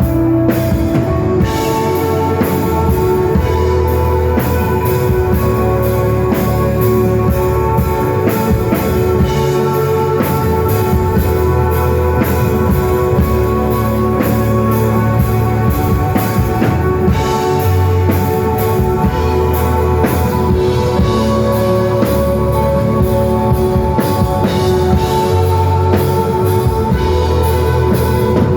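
Live psychedelic desert rock band playing: electric guitar holding long notes over bass and a drum kit keeping a steady beat.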